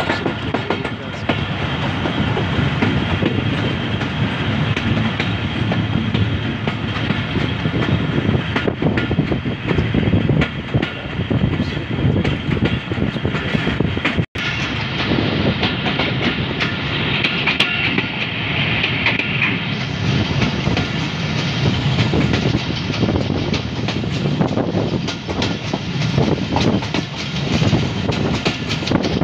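Passenger train running along the line, heard from aboard: a steady rumble of the carriage with the wheels clattering over the rail joints. The sound drops out for an instant about halfway through.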